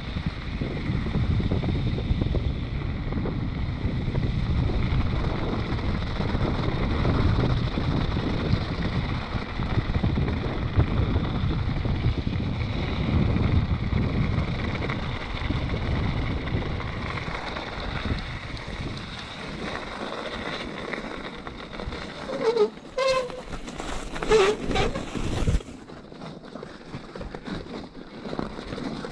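Wind rushing over the microphone with tyre rumble from an e-mountain bike rolling on a slushy gravel road. The noise eases after about eighteen seconds, and a few short squeaks come near the end.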